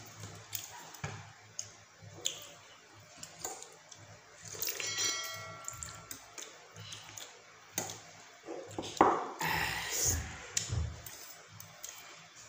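Eating sounds of two people eating instant noodles: forks clicking and scraping on ceramic plates, and noodles being slurped, loudest about nine seconds in. About five seconds in there is a brief ringing ping, like a plate struck by a fork.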